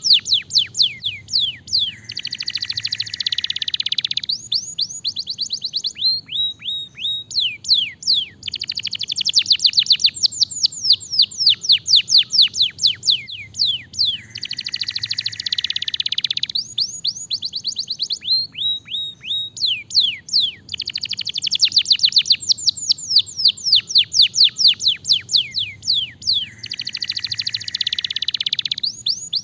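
Canary song: rapid runs of downward-sweeping whistled notes alternating with dense buzzy trills, the same phrase pattern coming round about every six seconds.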